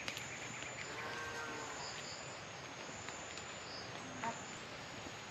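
Insects trilling in one thin, high, steady tone that breaks off and starts again every second or so, over a steady even hiss, with a few faint clicks.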